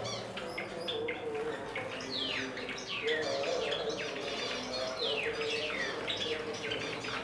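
Caged Java sparrows chirping: repeated quick chirps that slide down in pitch, calling over one another.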